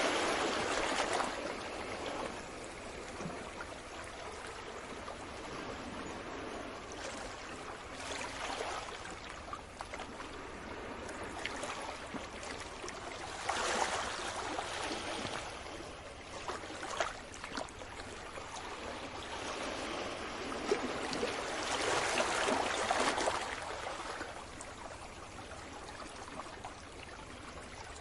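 Gentle sea waves washing onto the shore, swelling every several seconds, with trickling, gurgling water between the swells.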